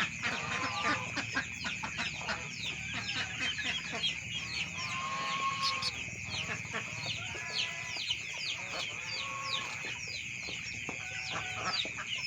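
A flock of young village chickens (ayam kampung) calling continually: many short, high, falling peeps with occasional lower clucks, over a steady high-pitched whine.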